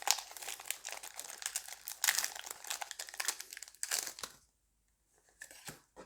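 Foil Pokémon booster pack wrapper crinkling as it is torn open by hand, stopping about four seconds in; two brief soft sounds near the end.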